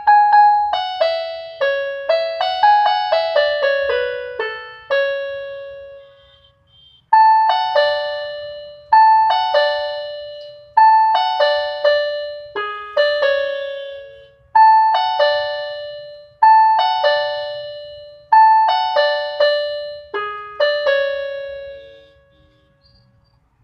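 Background music: a simple keyboard melody of short ringing notes that die away, chime-like. A quick run of falling notes comes first, then after a short pause a falling phrase repeats about every two seconds, until the music stops near the end.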